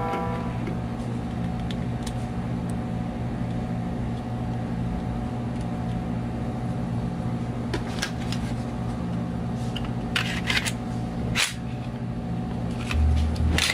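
Sharp metallic clicks and clacks of a Glock 19 pistol being reassembled after field-stripping, its slide and barrel fitted back onto the frame, over a steady low hum. The clicks come from about eight seconds in, several close together a little later, with a dull thump near the end.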